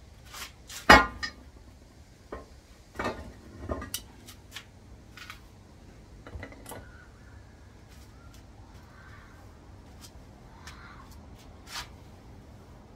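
Metal transmission parts and hand tools being handled on a workbench: scattered clinks and knocks. The loudest is a sharp clank about a second in, with a cluster of knocks around three to four seconds and lighter taps after that.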